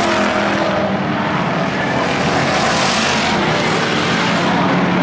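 Stock car engines running as several cars circle an oval track, a steady drone that swells as cars come past, loudest about three seconds in.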